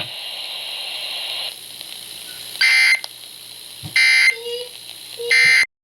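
Three short, buzzy bursts of Emergency Alert System digital data tones, about 1.3 s apart: the end-of-message code that closes a weather radio warning. Radio hiss comes before them, and the sound cuts off abruptly right after the third burst.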